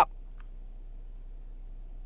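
Quiet room tone with a steady low electrical hum, and a faint small click about half a second in.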